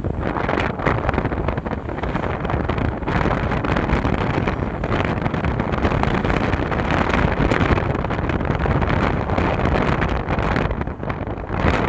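Heavy wind buffeting the microphone over the rumble of a moving vehicle, a steady loud roar that dips briefly near the end.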